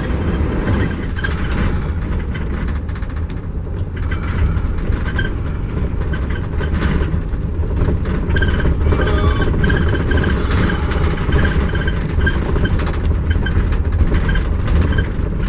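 Steady engine and road noise inside a moving vehicle's cab, heaviest in a low rumble. A faint, quickly repeated high chirp runs through the second half.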